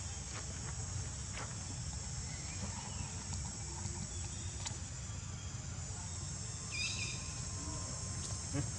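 Steady high-pitched drone of insects over a low background rumble, with a brief high chirp about seven seconds in.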